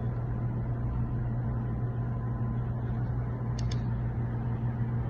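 Wmark 222 hair clipper running with a steady low hum, with a couple of faint ticks about three and a half seconds in.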